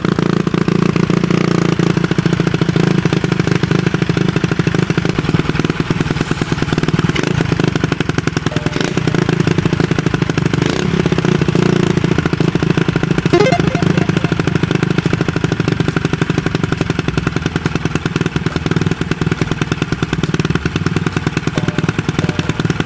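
1982 Honda Monkey Z50J's 49 cc single-cylinder four-stroke engine idling steadily through its newly fitted exhaust, a sound sample of the new exhaust.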